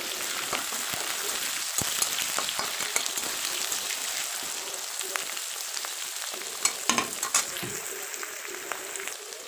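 Cubed carrots, potatoes and green beans sizzling in hot oil in a metal kadai, with a steel spatula scraping and clinking against the pan as they are stirred. A cluster of sharper clinks comes about seven seconds in.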